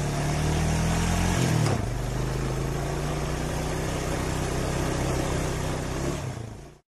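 Motorcycle engine sound effect, running steadily with a brief dip and lurch in pitch about a second and a half in. It cuts off abruptly near the end.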